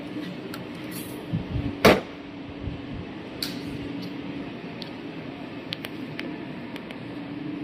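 Front grille flap of an Iveco Stralis truck being swung shut: a few soft knocks, then one sharp bang as it closes, followed by a few faint clicks, over a steady low hum.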